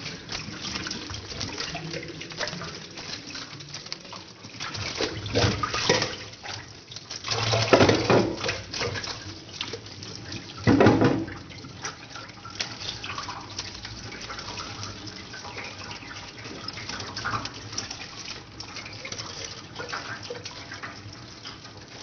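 Kitchen tap running into a stainless steel sink while a whole raw chicken is rinsed and turned under the stream, the water splashing louder three times near the middle.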